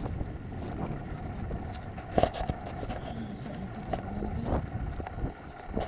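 Steady outdoor background rumble, with one sharp click a little after two seconds in and faint distant voices.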